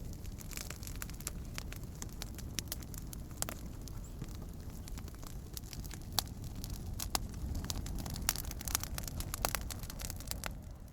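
Bonfire crackling: irregular sharp pops and snaps over a steady low rumble of burning.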